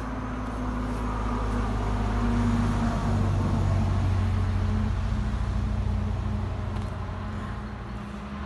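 A road vehicle passing: a low engine drone that builds to its loudest around three to four seconds in, then slowly fades.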